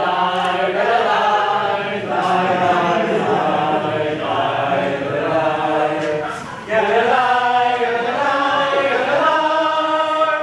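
An a cappella vocal group singing in harmony, with no instruments, in sustained chant-like chords. There is a short break after about six and a half seconds before the singing resumes.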